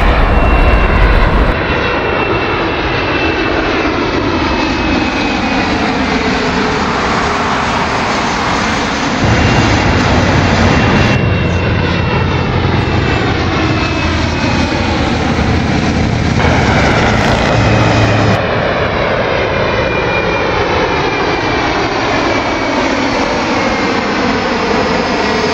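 Regional jet airliners passing low overhead on landing approach: a steady jet engine rush with a high turbofan whine. A swirling, sweeping quality comes as each jet goes over, and the sound changes abruptly several times at edits between passes.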